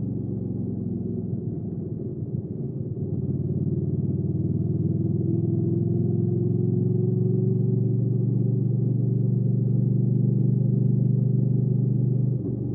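Hyosung GV300S Aquila's 300 cc V-twin engine running on the move, pulling with slowly rising revs for several seconds. The engine sound drops suddenly near the end.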